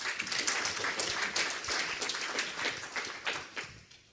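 Audience applauding: many hands clapping together, thinning and fading away near the end.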